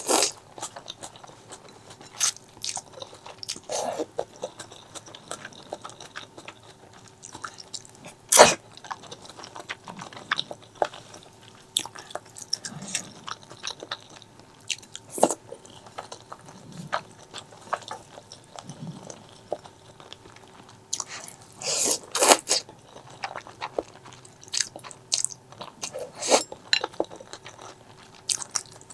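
Close-miked eating: irregular wet chewing and biting, with sharp mouth clicks and the odd louder crunch, over a faint steady hum.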